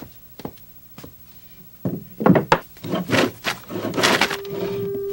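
Hand plane shaving a wooden board on a workbench. A few light knocks come first, then from about two seconds in a run of loud rasping strokes of the plane over the wood.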